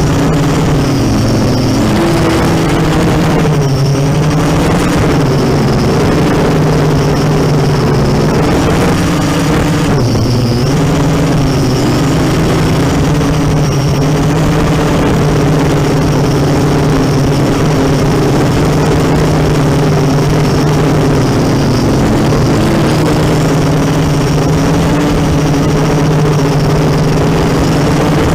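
ZMR 250 racing quadcopter's electric motors and propellers buzzing continuously, the pitch wavering up and down as the throttle changes, with a high motor whine over the top.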